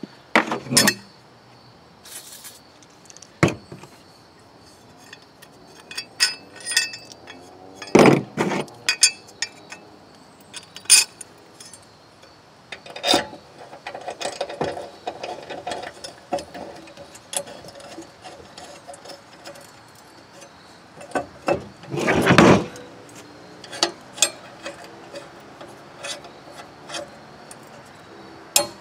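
Steel mower blade being handled and fitted onto the blade adapter under a mower deck: scattered metal clinks, knocks and scraping. The loudest knocks come about eight seconds in and again about twenty-two seconds in.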